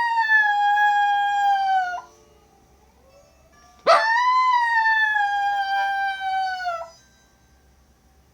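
Dog howling in answer to a fire engine siren. One long howl breaks off about two seconds in. A second long howl starts with a quick rise about four seconds in, slides slowly down in pitch and stops near seven seconds.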